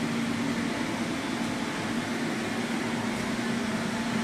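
Steady whirring hum of a ventilation fan, with a constant low tone under an even rush of air.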